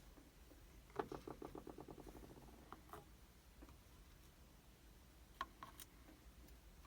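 A small metal lock part drops onto a hard surface and bounces to rest, a rapid run of taps that come quicker and fainter. A few single light clicks of parts being handled follow.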